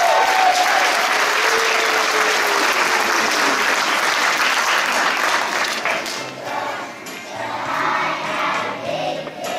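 Audience applauding and cheering with some shouts, dying away about six seconds in as music for the next song starts.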